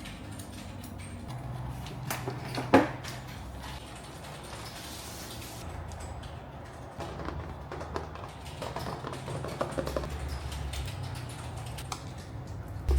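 Clicks, knocks and small mechanical rattles of computer parts being handled and fitted during a PC build, over a low steady hum. One sharp click about three seconds in is the loudest.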